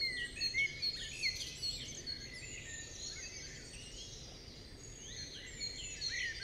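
Wild birds singing and chirping, many short rising and falling calls over a steady outdoor background hiss, busiest in the first second or so and again near the end.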